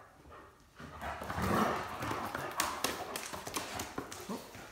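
Great Danes' paws and nails scuffling and clicking on a hard floor as they chase and wrestle, with a run of sharp clicks in the middle.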